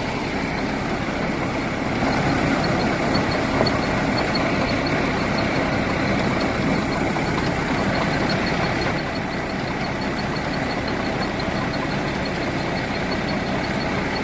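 Rice-milling machinery running: a loud, steady mechanical din with a faint, fast, regular ticking over it.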